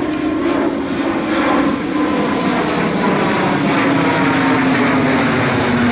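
F-15 fighter jet flying overhead, its twin turbofan engines a loud, steady rush with a high whine that slowly falls in pitch as it passes.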